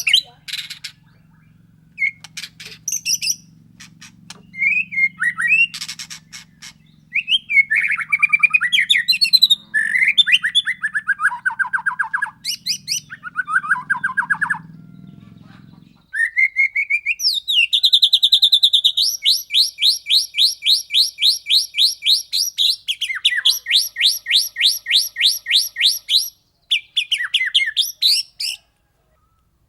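White-rumped shama (murai batu) singing: varied whistled phrases gliding up and down, then long runs of rapid, evenly repeated notes at about five or six a second, the rolling 'ngerol' delivery.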